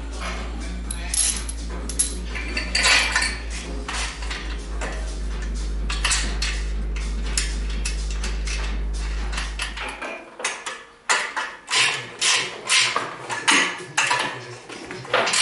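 Steel bolts, washers and spanners clinking and clanking against the steel tube frame of a go-kart chassis as it is bolted together by hand. A steady low hum sits under the clinks and stops abruptly about ten seconds in.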